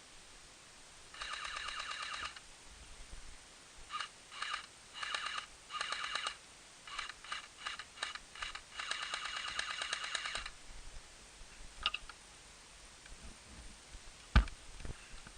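Electric airsoft guns firing in rapid full-auto bursts, some about a second long and some short, each a fast rattle of shots over the gearbox whine. Near the end comes a single sharp knock, louder than the bursts.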